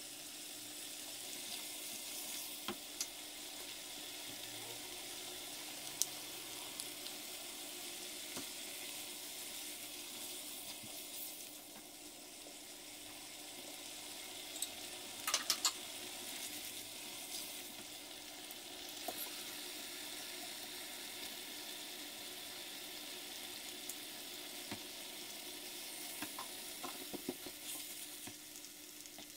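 Sauce sizzling and frying in a wok, with a steady hiss, while a silicone spatula stirs it. Scattered light clicks and knocks from the stirring, with a quick cluster of them about halfway through and a few more near the end.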